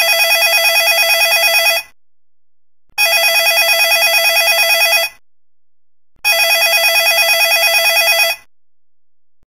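Telephone ringing: three rings with a rapid warble, each about two seconds long, with about a second's pause between them. It is a call ringing out before it is answered.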